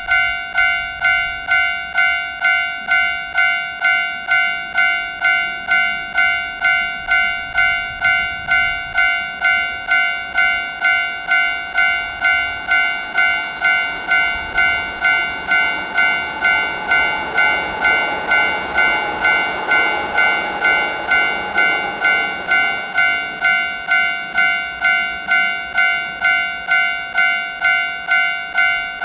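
Japanese railroad crossing warning bell ringing its steady electronic 'kan-kan' ding, about one and a half strikes a second. A train passes through the middle, its running noise swelling and fading under the bell.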